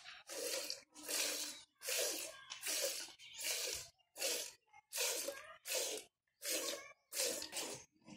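Cow being milked by hand into a steel pail already partly full of milk: short hissing squirts of milk, about three every two seconds, in a steady rhythm.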